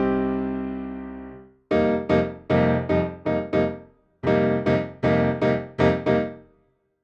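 Electric piano patch played on a Roland Fantom synthesizer: a held chord dies away, then two phrases of short, detached chords, about six in each, stop just before the end.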